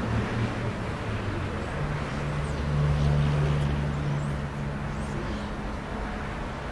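A low steady hum over open-air background noise, growing louder for a few seconds in the middle.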